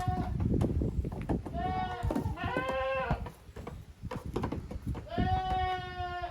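Young goat kids bleating: two short high calls about a second and a half in, then one long held bleat near the end, with scattered knocks and thuds around them.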